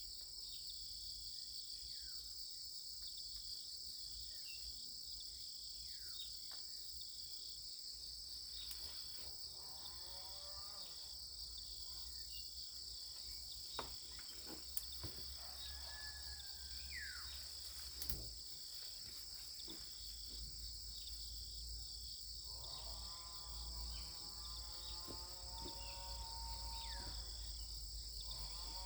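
Steady high-pitched chirring of an insect chorus that never lets up. A few faint sharp clicks come around the middle, and faint wavering voices can be heard briefly twice.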